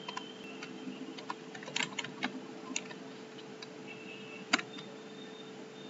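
Computer keyboard typing: irregular, scattered key clicks, with one louder keystroke about four and a half seconds in.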